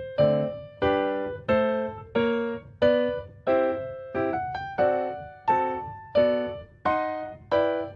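Background piano music: notes and chords struck at a slow, even pace, each ringing and fading before the next.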